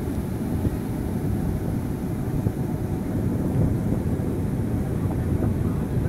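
Steady rumble of heavy surf breaking on a sandy beach, mixed with wind buffeting the microphone.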